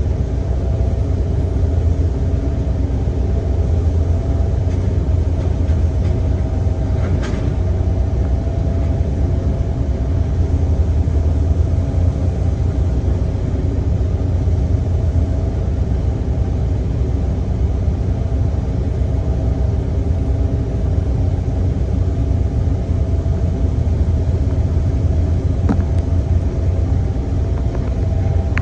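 Heavy diesel engine of construction machinery running steadily, a constant low drone, with one short click about seven seconds in.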